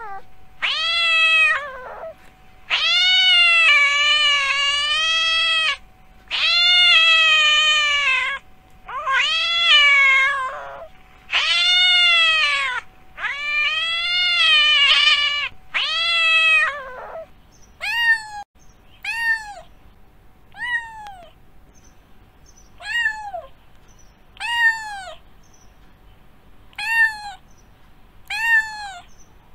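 Domestic cat meowing: a run of long, drawn-out meows for roughly the first half, then shorter meows one to two seconds apart.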